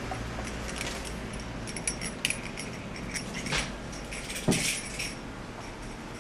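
A cat batting a toy ball around: irregular light clicks and short metallic jingles, with one louder knock about four and a half seconds in.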